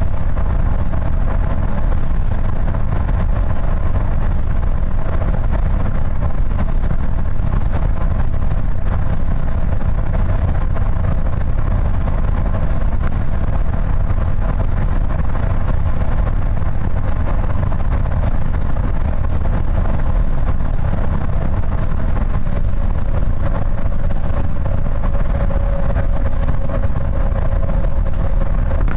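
Cabin sound of a Gillig transit bus cruising at highway speed: a steady low rumble of engine and road noise with a steady drone above it.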